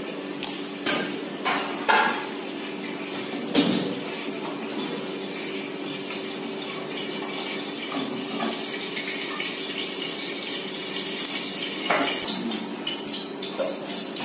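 Pieces of etta fish being put into simmering fish-curry masala in an aluminium pot: several sharp clinks of utensil and fish against the pot in the first few seconds and once more near the end, over the bubbling of the curry and a steady low hum.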